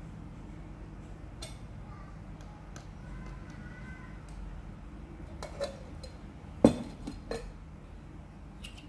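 Light clinks and knocks of a plastic funnel and a glass bottle being handled as the funnel is lifted out of the bottle's neck and set down. There are a few scattered ticks, then a cluster of knocks about two-thirds of the way in, one of them sharp and much louder than the rest.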